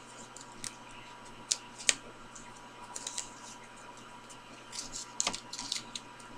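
Folded Post-it note paper being handled and pressed together: scattered crisp crackles and taps of paper, a cluster of them about five seconds in, over a faint steady hum.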